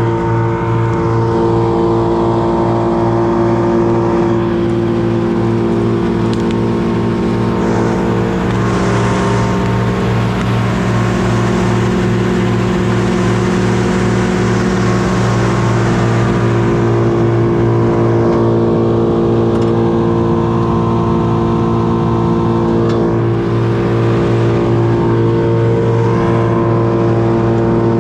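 An engine running steadily at constant speed, with a rapid even pulse and a hiss that swells for several seconds in the middle.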